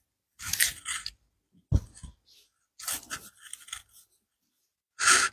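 Several short scuffs and rustles, with one soft thump a little under two seconds in: footsteps and the rub of handling as the phone filming is carried through the rooms.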